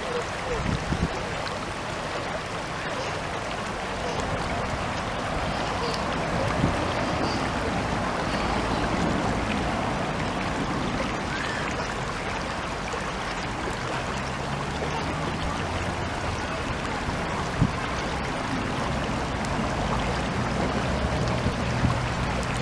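Natural spring water flowing in a stream, a steady rushing. A low steady hum joins in past the middle.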